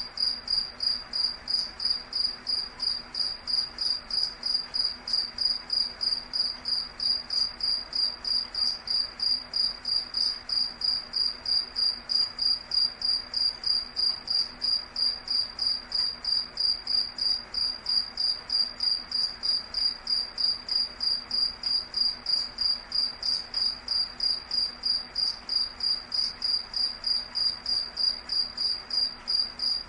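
An insect chirping steadily in a high, even pulse, about three chirps a second, over a faint hiss.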